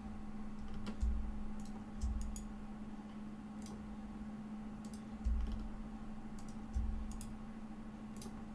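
Scattered, irregular clicks of a computer mouse as pattern pieces are selected and cut, with a few dull low thumps and a steady low hum underneath.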